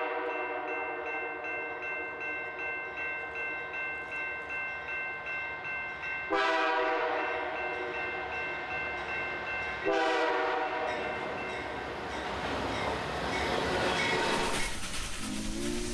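Diesel locomotive air horn sounding several long blasts and then a shorter one, over a railroad crossing bell dinging about twice a second. After the horn stops comes the rumble of a passing train, and a new, lower horn tone starts near the end.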